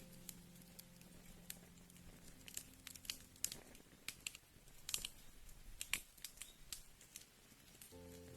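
Wood fire crackling, with irregular sharp pops and snaps at a low level. Faint sustained low music notes die away in the first few seconds.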